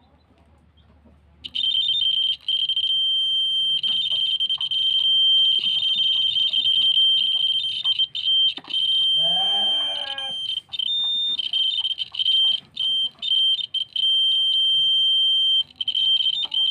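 3–24 V DC buzzer on a homemade SW-420 vibration-sensor alarm sounding a steady high-pitched tone. It starts about a second and a half in and then switches on and off in irregular bursts as the board is shaken: the sensor triggers the buzzer on vibration and cuts it when the shaking settles.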